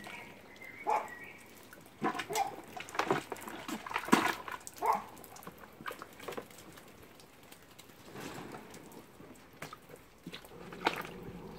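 Capuchin monkeys splashing and sloshing in a plastic tub of soapy water: irregular splashes and knocks, a cluster of them between about two and five seconds in and another near the end.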